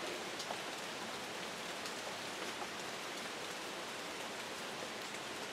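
Steady rain falling: an even hiss with a few faint, scattered drop ticks.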